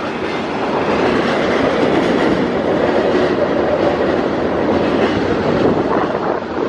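A train passing on the tracks, with a steady rumble of steel wheels on rail.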